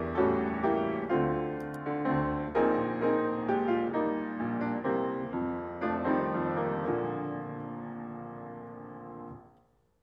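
Piano music: a run of struck notes and chords, ending on a held chord that dies away about nine and a half seconds in.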